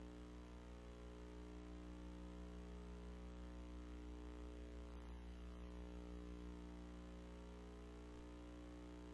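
Faint, steady hum made of several fixed tones under a light hiss, with no voices and no distinct events.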